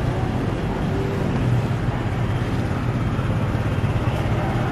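A steady low mechanical rumble with a humming tone, from a running motor.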